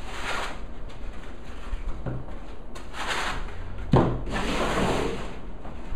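Foam packing blocks rubbing and scraping against a cardboard box as they are pulled off a laptop and set down, with a sharp knock just before four seconds in.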